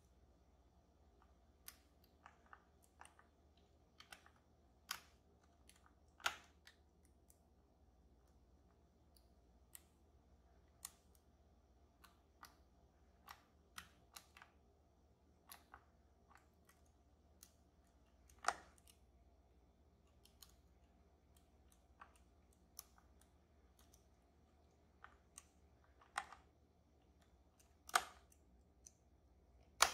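Faint, irregular clicks and taps of lock picks working the sliders of an EVVA Dual lock, with a few louder clicks among them.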